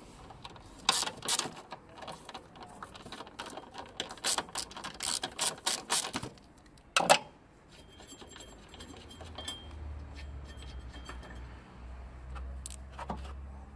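Ratchet wrench with a 13 mm socket clicking in quick runs while nuts are undone, followed by a single sharp knock about seven seconds in.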